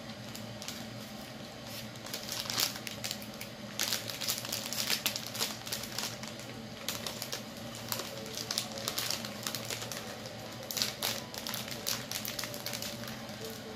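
Clear cellophane flower wrapping crinkling and crackling as it is handled and pulled at around a bouquet of roses, in irregular bursts of dense crackles that come in two long spells.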